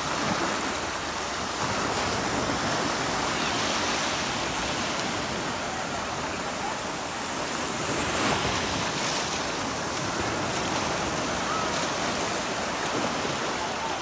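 Sea waves breaking and washing up on the beach: a steady surf hiss that swells and eases, loudest about eight seconds in.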